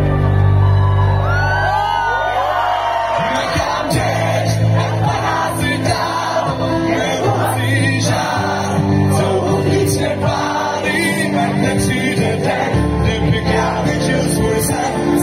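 Live band music: a man sings over keyboard and acoustic guitar, with long held low notes underneath.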